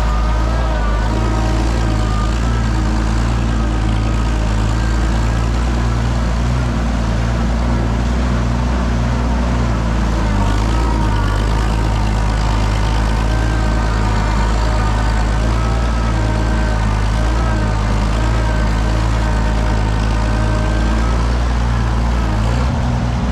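Oliver 77 tractor's six-cylinder engine running at a steady speed.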